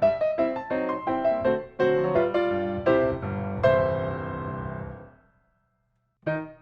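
Background piano music, a run of notes that fades away, breaks off to silence for about a second, then starts again near the end.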